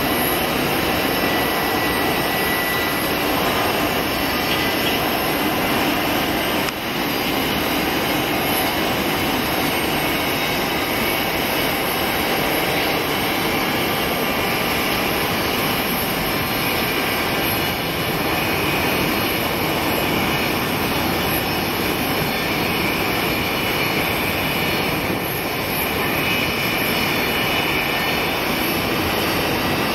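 Boeing C-17 Globemaster III's four turbofan engines on final approach: steady jet noise with a faint high whine above it.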